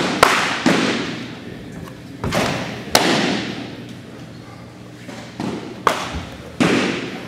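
Baseballs popping into catchers' mitts, a string of about seven sharp smacks at uneven gaps, each ringing out with a long echo through the gymnasium.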